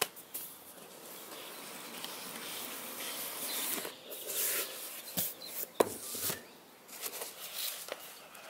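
Cardboard scraping and rustling as the lid of a cardboard box is slid off and lifted, then paper and packing material rustling, with a few sharp taps a little after halfway.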